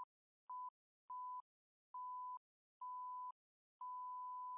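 Electronic beep tone repeating about six times with short gaps, each beep longer than the one before, the last lasting about a second.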